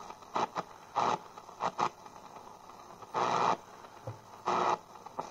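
Supersonic SC-3201BT boombox radio being tuned across the shortwave band: short bursts of static and snatches of signal come and go through its speaker as the dial sweeps, the longest about three seconds in.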